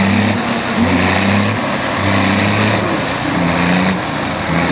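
Trial truck's diesel engine working under heavy load as the truck climbs a steep mud bank, the throttle opened and eased in pulses of just under a second.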